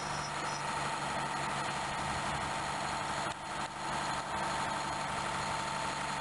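Redhen diesel railcar's engine idling steadily, with a constant high whine above the engine note.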